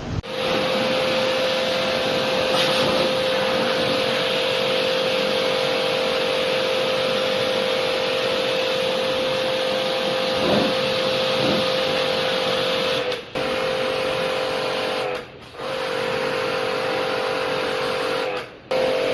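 A small electric machine running with a steady whine over a loud hiss, switched off briefly three times and restarting each time.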